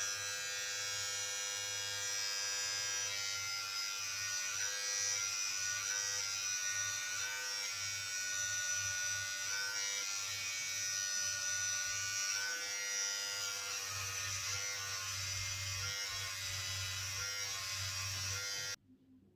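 Daling cordless hair trimmer running steadily with an even electric buzz, switched off near the end.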